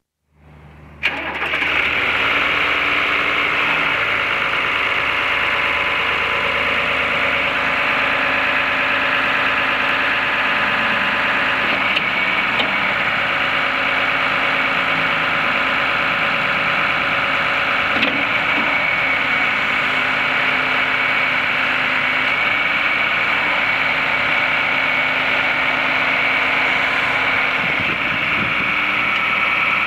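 John Deere 2840 tractor's six-cylinder diesel engine running steadily while the tractor drives and works its front loader, the sound jumping up to full loudness suddenly about a second in.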